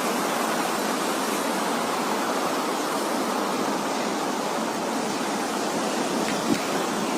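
Steady, even rushing of heavy monsoon rain and floodwater, with no break or change.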